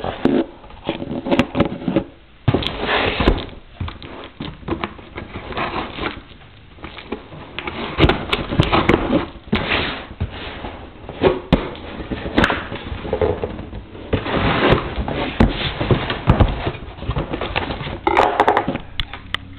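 A cardboard shipping box being cut open with a box cutter and handled: irregular scraping, rustling and sharp knocks of cardboard.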